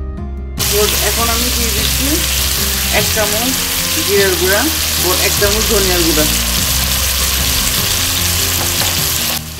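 Sliced onions sizzling in hot oil in a pot, stirred with a wooden spoon. The sizzling cuts in sharply about half a second in.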